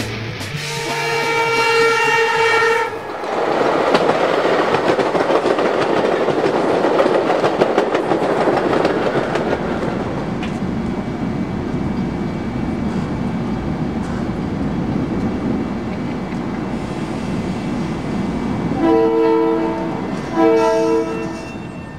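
A train horn sounds for about two seconds. Then the passing train's noise swells, holds and slowly fades, and two short horn blasts come near the end.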